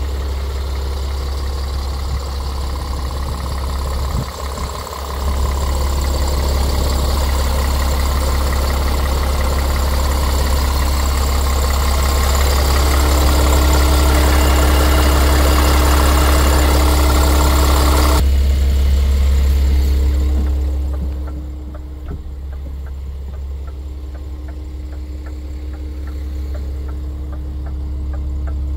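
Scania R410's diesel engine idling steadily. About 18 seconds in the sound turns suddenly duller, and for the last several seconds it is quieter and muffled, heard from inside the cab.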